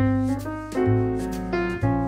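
Background piano music: chords and melody notes changing every half second or so over sustained bass notes.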